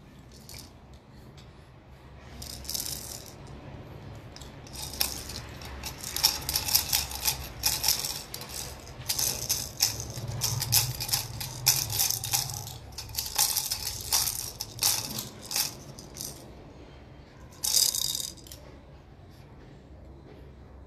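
Plastic baby rattle being shaken: a short shake, then several seconds of repeated shaking, and one more brief shake near the end.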